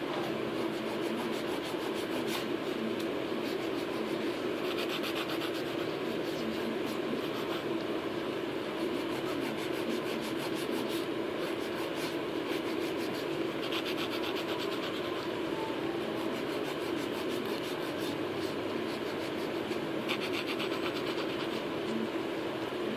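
Hand nail file rasping back and forth along the edges of artificial nails in quick, repeated strokes, over a steady low hum.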